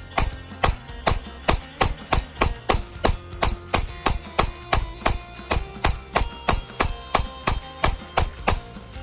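Glock 19 9mm pistol fired in a long, rapid string of shots, about three a second, stopping shortly before the end. Background music with held notes plays underneath.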